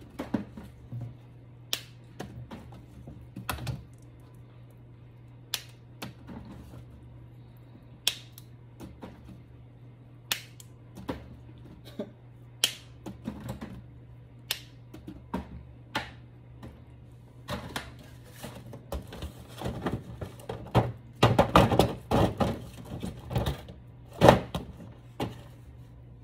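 Fresh asparagus spears being snapped by hand, one crisp snap every second or two, with a busier run of snapping and clatter in the last third.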